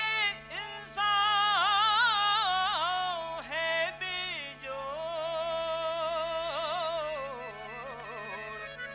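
A male Nautanki singer singing a chaubola in a powerful, high voice without words, holding long notes with a wide, wavering vibrato and quick ornamental turns, over a steady drone.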